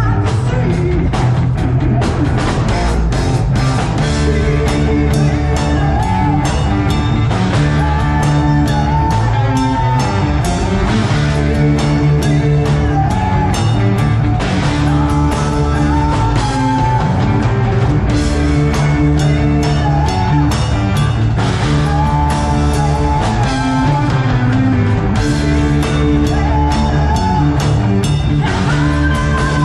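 Rock band playing live: drum kit keeping a steady beat under electric guitar and bass chords, with a melodic line above them.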